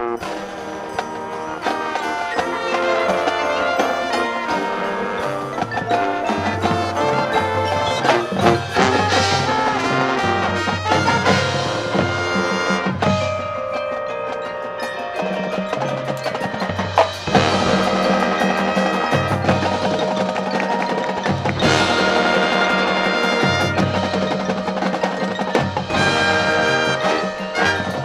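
High school marching band playing its field show music, the front ensemble's mallet percussion and chimes prominent among struck percussion. Sustained low notes enter about halfway through.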